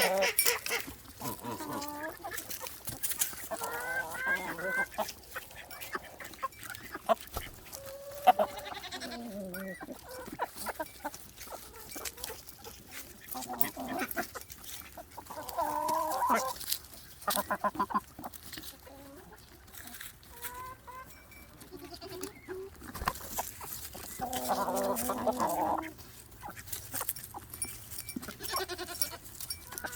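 Barnyard animals calling: chickens clucking, with goat bleats and goose-like honks in several separate bouts, plus scattered short taps and clicks.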